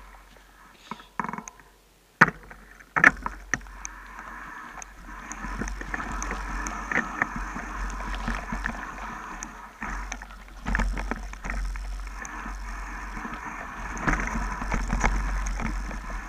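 Mountain bike rolling down a leaf-strewn dirt and rock trail: a few sharp knocks from the bike in the first seconds, then steady tyre noise over leaves and gravel with scattered rattles and clicks from about four seconds in.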